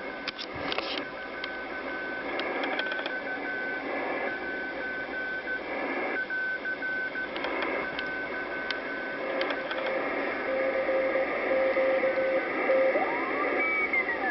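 Kenwood TS-680 transceiver's receiver audio: band hiss with Morse code signals heard as keyed beat tones, one higher-pitched and, later on, a second lower one. Near the end whistles glide up and then down in pitch as the tuning sweeps across signals.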